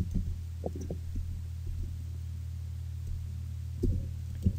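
Computer keyboard keystrokes: a few scattered key presses, then a quicker run of them near the end, over a steady low electrical hum on the microphone.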